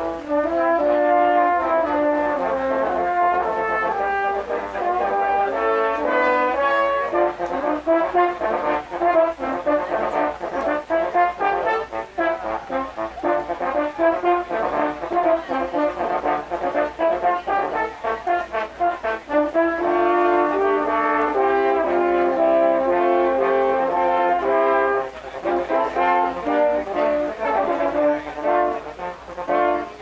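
A French horn quartet playing live in harmony, mostly held chords, with a stretch of short, detached notes in the middle.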